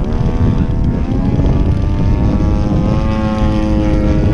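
Radio-controlled model airplane's engine and propeller droning as it flies overhead, the pitch climbing at the start and then holding fairly steady.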